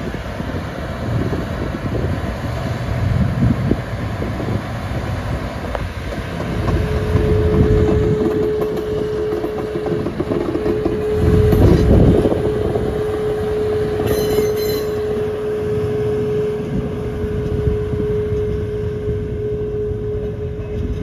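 Sugarcane-train diesel locomotive hauling a rake of loaded cane bins past, its engine running over the rumble of the bins on the rails, loudest about twelve seconds in. A steady high whine sets in about seven seconds in and holds.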